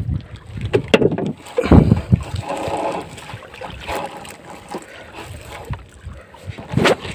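Handling noise on a wooden fishing boat: irregular knocks and thumps, the loudest about two seconds in, and rustling as a mesh bag net full of catch is pulled about, with wind rumbling on the microphone at the start.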